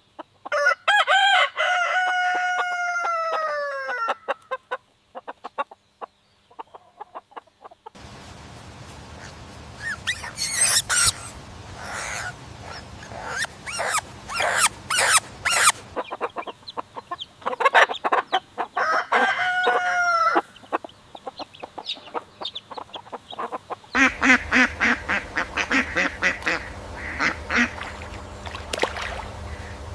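AI-generated farmyard fowl sounds: a long crow starting about a second in, held about three seconds and falling at the end, then many short clucks and honks, with a second falling crow about two-thirds of the way through.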